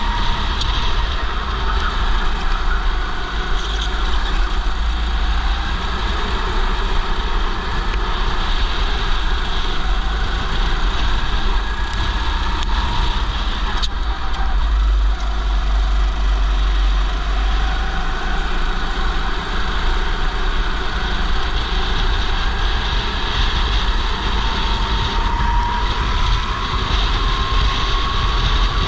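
Go-kart engine running under load as the kart races through corners, its pitch rising toward the end as it accelerates, with heavy wind rumble on a helmet-mounted camera.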